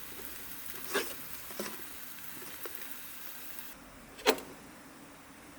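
Marinated vegetables sizzling in a frying pan, with a few sharp clinks of metal utensils. The sizzle cuts off about two thirds of the way through, and a single loud clack follows.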